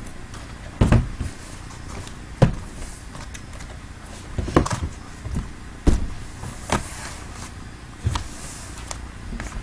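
Cardboard hobby boxes from a sealed trading-card case being handled: about six knocks and bumps as boxes are set down and moved, with brief scraping and rustling of cardboard.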